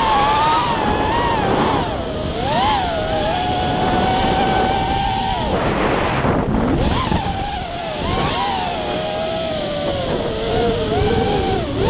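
Racing quadcopter's four DYS 2205 2300 KV brushless motors with DAL props whining over a rush of air, the pitch rising and falling continually with the throttle. The whine briefly drops out about six seconds in and settles lower near the end.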